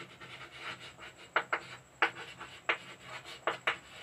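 Someone writing: short scratchy strokes of a writing tip on a surface. The strokes come irregularly, about half a dozen of them, starting a little over a second in.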